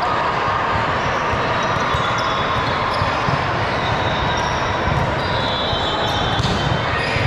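Live basketball play in a gym: the ball bouncing on the hardwood court amid a steady hubbub of voices, with short high sneaker squeaks about five seconds in.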